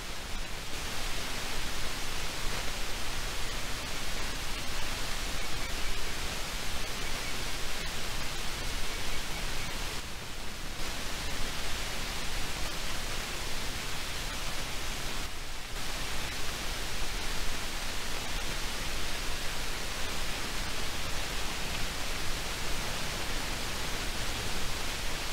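Steady, even hiss with no distinct events, with two brief dips in the highest part of the hiss about ten and fifteen seconds in.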